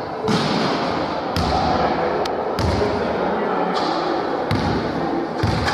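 Basketball thudding and bouncing on an indoor sports-hall floor after a free throw, several sharp impacts echoing in the large hall, over background chatter.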